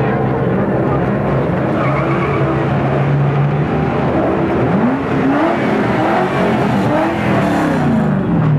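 Drift cars' engines running as they roll past slowly, then revving up and down over and over from about five seconds in.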